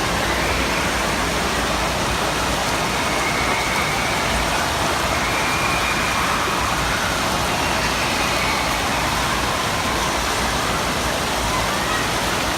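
Steady rush of water in an indoor water park, with faint distant voices in the echoing din.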